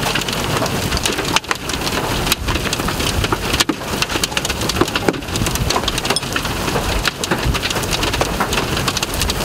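Steady rain with many sharp taps of drops striking close to the microphone, over a low rumble.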